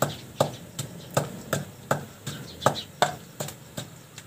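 Long wooden pestle pounding garlic and green chillies in a clay mortar: steady, even strokes, about three a second.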